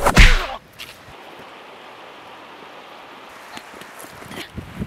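A loud whooshing punch hit about a quarter second in, then a steady background hiss, with a few small knocks and another hit starting right at the end.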